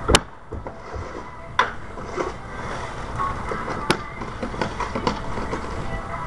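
Scattered sharp knocks and scrapes of tools on a roof as old shingles are torn off. The loudest crack comes just after the start, with others about a second and a half and four seconds in.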